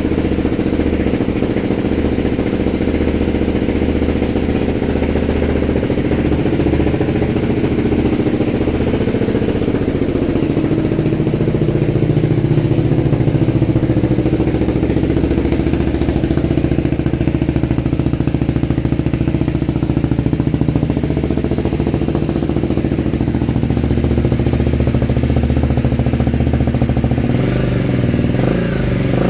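BMW G310GS single-cylinder engine idling steadily, heard through its exhaust.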